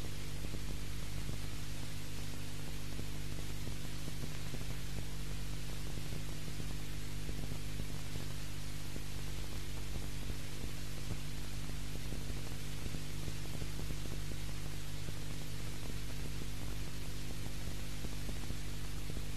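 Steady electrical mains hum, several low tones stacked together, under an even hiss, with no other sound: the noise floor of an old VHS recording of a TV broadcast.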